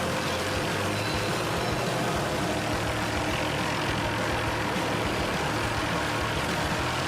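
A large engine running steadily, with a constant low hum.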